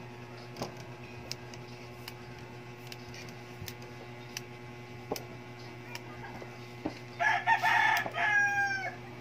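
A rooster crows once, loud, about seven seconds in; the call ends in a falling note. Faint scattered snaps come from purple yardlong bean pods being broken by hand.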